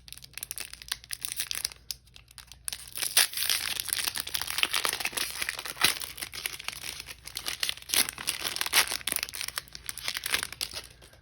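Foil wrapper of a Pokémon trading-card booster pack crinkling and tearing as it is opened by hand: a dense run of crackles, louder from about three seconds in.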